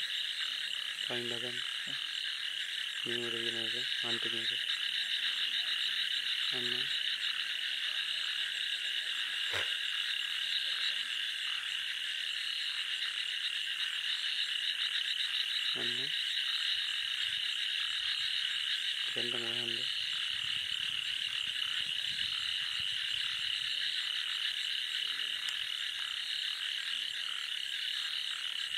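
Frogs calling at night: a dense, steady, high-pitched chorus, with short, deep croaks breaking in several times during the first twenty seconds. A single sharp click about halfway through.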